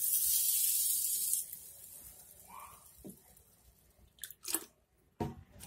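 Water poured from a plastic bottle into a steel bowl of dry lentils and rice, splashing loudly for about a second and a half, then running on much more quietly. A few short sharp clicks near the end.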